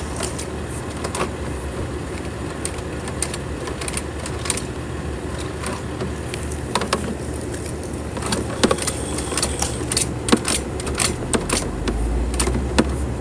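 Sewer inspection camera's push cable being fed down a drain line: scattered clicks and light knocks over a steady low mechanical hum, the clicks coming thicker in the second half.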